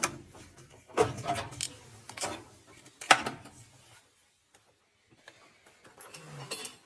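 A handful of sharp clicks and knocks, a second or less apart, the loudest about three seconds in, like small hard objects being handled; a faint low hum follows near the end.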